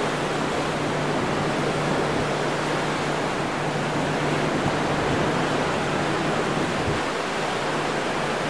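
Steady rush of wind and choppy open sea alongside a moving cruise ship, with a faint low hum underneath.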